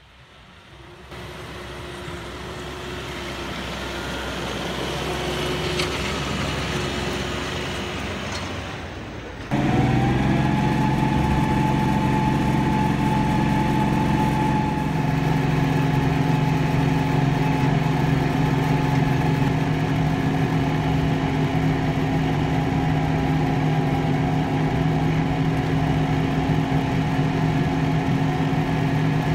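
Kioti tractor's diesel engine running, growing steadily louder as it approaches for about nine seconds. It then jumps to close range from the operator's seat with a short rise in pitch, and runs steadily while the tractor pushes its front snow plow blade.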